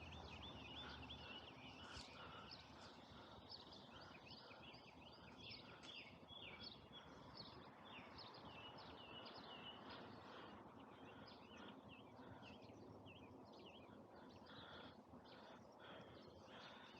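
Faint birdsong from several birds: many quick chirps and short trills throughout, over a low background hiss of open-air ambience.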